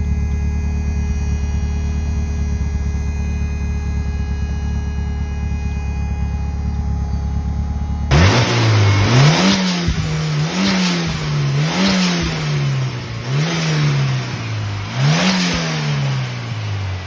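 Turbocharged Ford 2.3-litre four-cylinder engine in a 1963 Volvo 122S, first running at a steady pitch, then, after an abrupt change about eight seconds in, revved up and down again and again, about once every second and a half.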